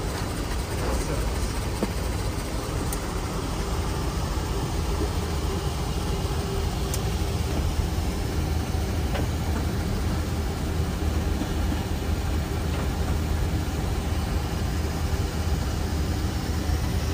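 Steady noise inside an airliner's cockpit: rushing air and engine sound with a constant low hum, unchanging throughout.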